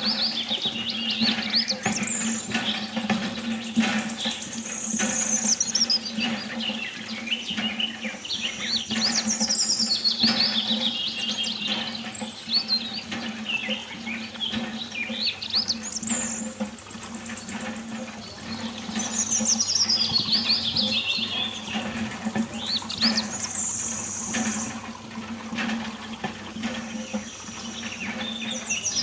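Birds chirping and singing in repeated falling phrases every few seconds, over a steady low hum.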